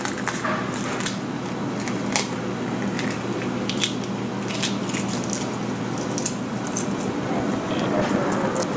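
Pot of tteokbokki and noodles in gochujang sauce cooking on the stove: a steady hiss with many small scattered pops and crackles of bubbling.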